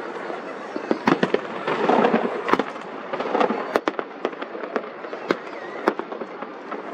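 Fireworks display: a rapid string of sharp bangs from bursting shells over a dense, continuous crackle, loudest and busiest about two seconds in.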